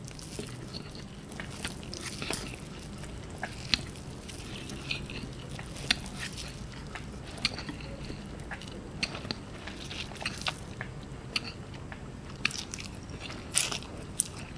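A person chewing and slurping instant noodles eaten with chopsticks: irregular wet mouth clicks and smacks.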